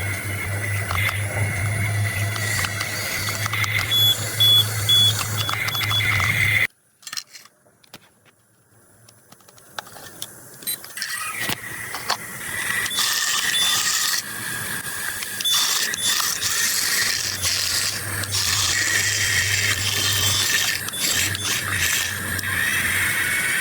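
Radio-controlled model excavator running: a steady motor hum and high whine with mechanical clicking and rattling. The sound cuts out to near silence about a third of the way in, then picks back up gradually.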